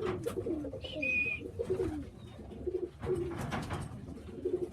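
Racing pigeons cooing, many low, wavering coos following one another without a break, with a few short clicks among them.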